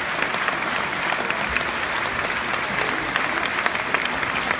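A large audience applauding steadily: dense clapping from many hands, continuous with no let-up.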